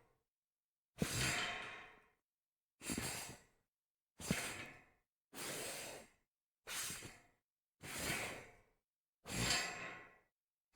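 A series of slides across a metal grate: seven separate scraping sounds, each starting sharply and fading within about a second, with short silences between them.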